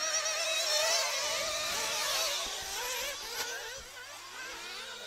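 Several 1/8-scale nitro RC buggies' small two-stroke glow engines buzzing, their pitch rising and falling as the cars accelerate and brake around the track. The sound grows fainter over the last couple of seconds.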